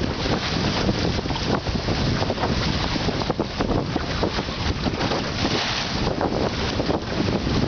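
Strong wind buffeting the microphone aboard a Drascombe Lugger sailing in a 10–15 knot breeze, with water rushing and splashing along the open boat's hull through the chop. The noise is constant and gusty, with no engine.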